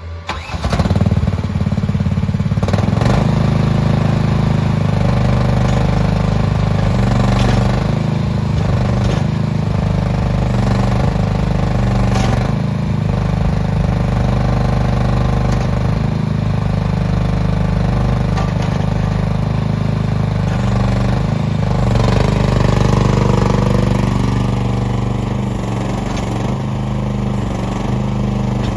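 MachPro MP15 mini excavator's engine running steadily while the boom and arm are worked hydraulically, with a few brief clunks along the way.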